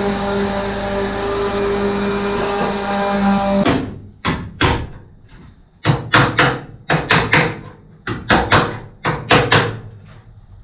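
Pneumatic angle die grinder with an abrasive cleaning wheel running steadily as it strips paint off the steel body, stopping about three and a half seconds in. Then a hammer strikes the sheet-steel body about a dozen times in quick clusters, each blow sharp with a short ring, knocking out a buckle at the corner.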